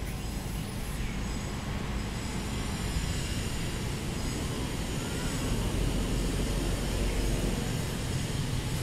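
Steady low rumbling background noise, strongest in the bass, growing slightly louder toward the end.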